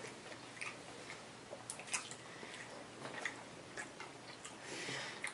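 Faint sounds of people chewing chicken nuggets, with scattered small clicks and taps.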